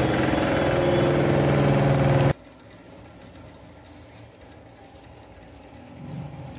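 Electric sewing machine running fast and steady, stopping abruptly a little over two seconds in; after that only faint room sound and light handling.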